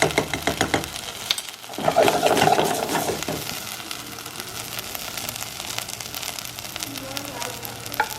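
Rice frying in oil with tomato sauce in a pan, sizzling steadily while a spoon stirs it, with quick scraping clicks in the first second and a louder stretch of stirring about two seconds in.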